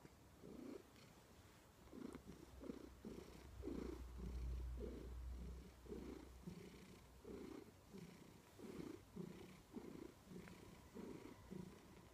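Maine Coon cat purring, a steady string of short pulses about twice a second, with a brief low rumble about four seconds in.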